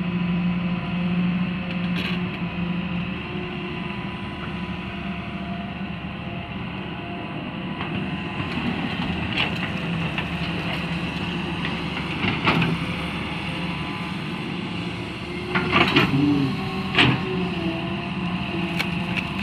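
Hitachi hydraulic excavator running steadily while it digs and swings, with a steady engine hum and a high steady tone from the machine. Its bucket scrapes into a pile of dirt and rock and drops a load into a dump truck, with several sharp clanks and clatters of rock and steel, the loudest near the end.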